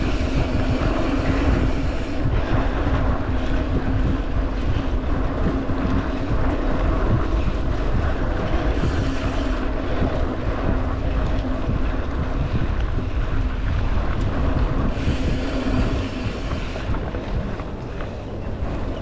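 Wind buffeting the microphone over the steady rolling rumble of a mountain bike riding a dirt trail.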